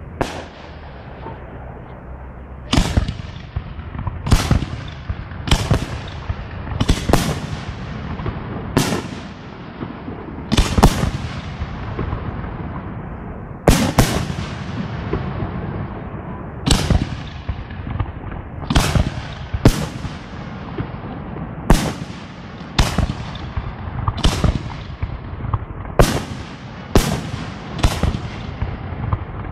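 Aerial firework shells bursting in a steady series from a professional display, with a sharp bang every one to two seconds, each trailing off in an echo.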